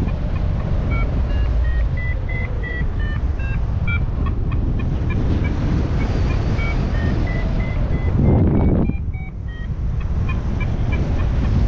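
Paragliding variometer (XC Tracer Maxx) beeping in quick short tones that shift up and down in pitch: the climb tone, a sign that the glider is rising in lift. Wind rushes on the microphone underneath, with a louder gust a little after eight seconds in.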